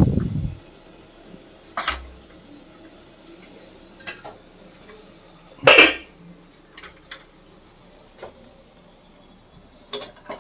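Stainless-steel kitchenware knocking and clanking: a stacked idli stand set down with a dull thud at the start, then scattered clicks and one loud metallic clank about six seconds in as the steamer pot is opened and the stand handled, with small knocks near the end.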